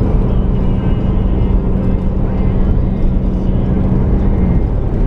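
Car driving along a road, heard from inside: steady road and engine noise with a low drone that drops out near the end.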